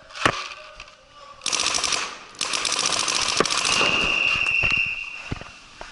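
Paintball markers firing rapid strings of shots: a single shot near the start, then two long bursts of fast fire. After the second burst a steady high tone sounds for about a second and a half.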